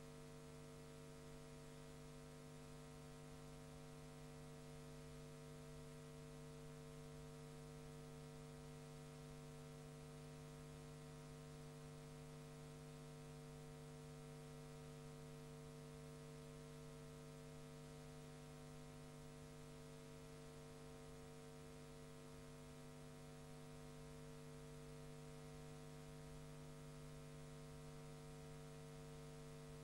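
Near silence: a faint, steady electrical hum with hiss from the recording chain, unchanging throughout, with no game sound on the track.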